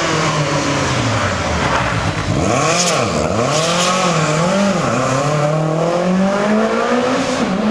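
Rally car engine revving hard: its pitch drops low, then swings up and down several times with repeated throttle blips, then climbs steadily as the car accelerates.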